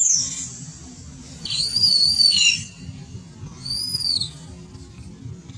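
Long-tailed macaque screaming: two high-pitched calls that rise and fall in an arch, the first and louder one about one and a half seconds in lasting about a second, a shorter one near four seconds.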